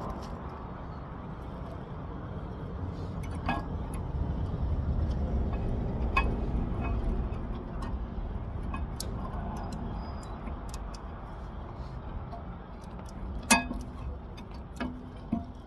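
Road traffic going by, swelling and easing off in the middle, with a few sharp metallic clinks from brake parts and tools being handled, the loudest near the end.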